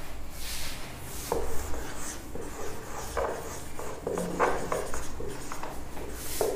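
Marker writing on a whiteboard: a series of short strokes as letters are drawn.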